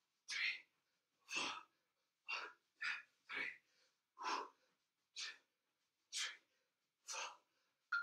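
A man's short, forceful breaths, about nine in a row, roughly one a second, from the effort of doing repeated crunches.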